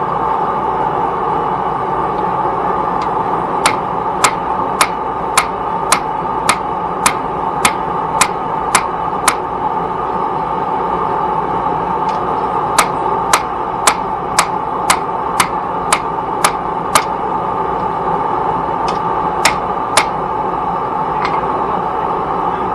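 Hammer blows on steel on an anvil while forging a knife blade: two runs of sharp ringing strikes at about two a second with a pause between, then two more near the end, over a steady rushing noise.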